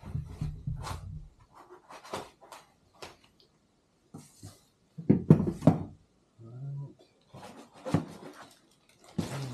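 Hands rummaging in a cardboard shipping box and unpacking packed parts: rustling of cardboard and foam with scattered clicks and knocks. About five seconds in comes a louder clatter as the parts are set down on the table, and near the end another sharp knock.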